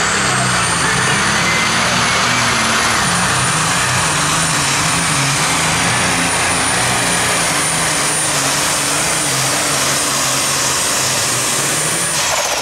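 Super stock pulling tractor's turbocharged diesel engine at full throttle, hauling the weight sled, with a high steady turbo whine over the engine's pulsing low note. About 12 seconds in the whine falls away and the engine winds down as the pull ends.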